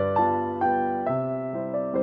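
Soft background piano music: single notes and chords struck about every half second, each fading before the next.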